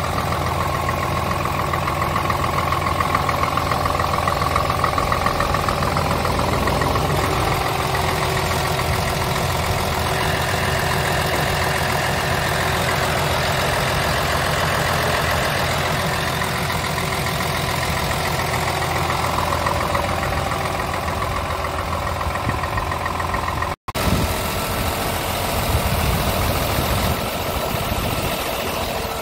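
Scania R tractor unit's straight-six diesel engine idling steadily, heard close up with the cab tilted. The sound breaks off for an instant about two-thirds of the way through.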